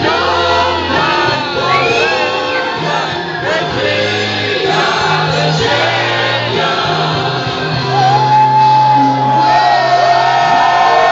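Loud music with singing, with shouts and whoops from a crowd over it; a long held sung note comes in about eight seconds in.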